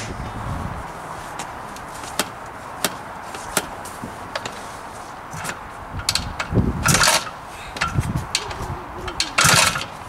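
1975 Husqvarna 250 two-stroke motocross engine being kicked over, with two hard kickstart strokes about six and a half and nine and a half seconds in; it does not fire, which those present put down to too little fuel. Sharp clicks come about every three-quarters of a second beforehand.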